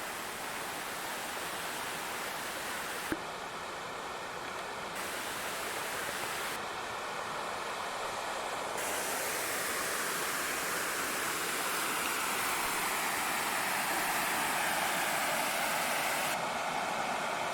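Waterfall on Stonewall Creek, a steady rush of falling water that grows a little louder about halfway through, with a single short click about three seconds in.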